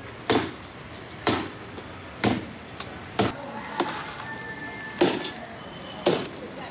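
A steady run of sharp knocks or blows, about one a second, each with a brief ring after it.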